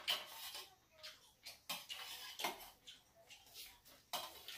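Metal utensils clinking and scraping against a stainless steel bowl and tray in scattered, irregular clicks.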